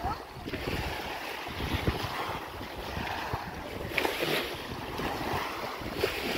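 Wind buffeting the microphone with irregular low thumps, over a steady rushing noise.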